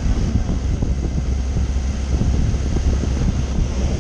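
Wind buffeting the microphone on a moving motorcycle, a steady rumbling rush with the bike's engine running underneath.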